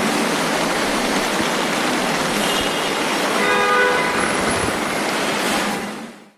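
Vehicle horns tooting over a loud, steady rush of noise, the clearest horn blast about three and a half seconds in; the whole sound fades out near the end.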